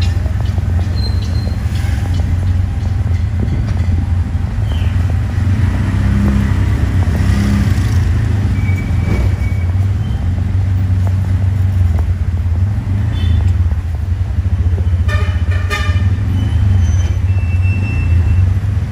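Steady low engine drone of an auto-rickshaw, heard from on board while riding in street traffic. A short horn toot sounds about two-thirds of the way in, followed shortly by a quick series of toots.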